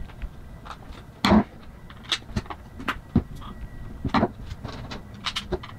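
Screwdriver driving the case screws into the plastic housing of an ACR GlobalFix EPIRB: irregular clicks and short scrapes of the blade turning in the screw heads, the loudest about a second in.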